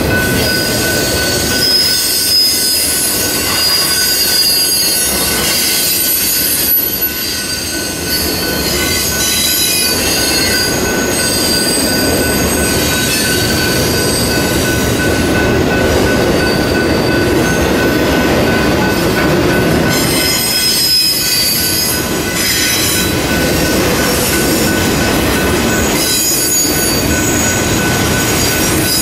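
BNSF intermodal freight train's cars passing close by, a steady rumble and clatter of wheels on rail. High wheel squeal comes and goes over it.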